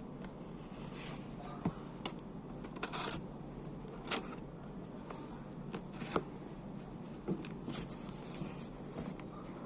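Packaging being handled during an unboxing: scattered short rustles, clicks and taps over a steady low background hum.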